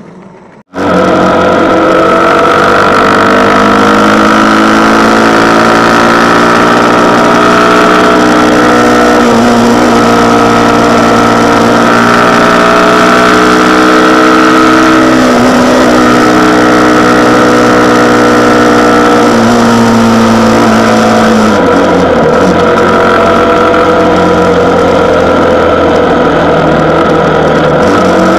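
Motorcycle engine running steadily while riding on the road, its pitch drifting slowly up and down with road speed and shifting about three-quarters of the way through.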